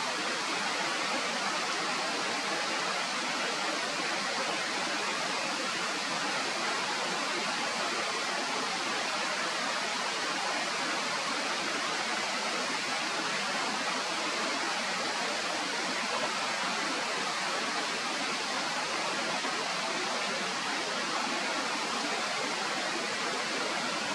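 Steady, even rushing noise without a break, with nothing standing out from it.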